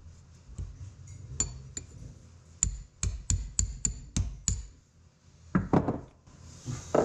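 Hammer blows on a steel punch, driving roll pins out of the pinion shafts in a Farmall 300 torque amplifier planet carrier: a couple of sharp metallic taps, then a quick run of seven evenly spaced ringing strikes. Near the end a dog barks twice.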